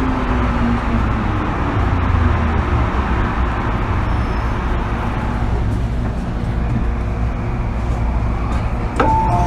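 Interior running noise of an MTR M-Train car: a motor whine falling in pitch over the first second, then the steady rumble of the car rolling on the track. Near the end a two-note electronic chime starts.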